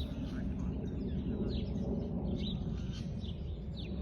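Small birds chirping: short, falling chirps several times a second over a steady low outdoor rumble.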